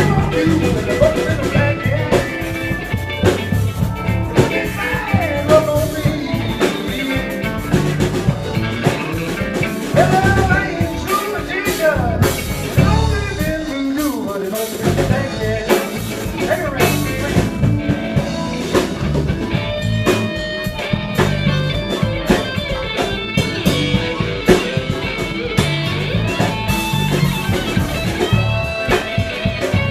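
Live blues band playing an instrumental stretch: a guitar lead with bending notes over bass and a drum kit.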